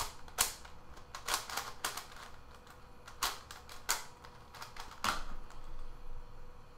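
Lan Lan 4x4 puzzle cube having its layers turned by hand: a quick, irregular run of hard plastic clicks and clacks as each turn snaps into place.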